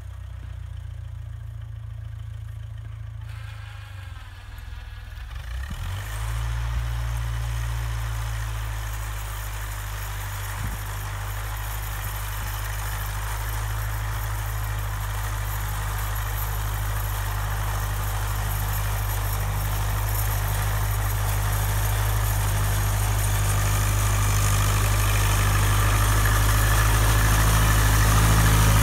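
Massey Ferguson TEA20's four-cylinder petrol engine running steadily as the tractor pushes snow with its front blade. The engine gets louder about six seconds in, then grows steadily louder as the tractor comes closer.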